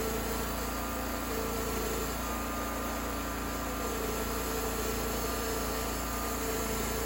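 Homemade sawmill running steadily, with an even mechanical noise and a constant hum that hold at one level throughout.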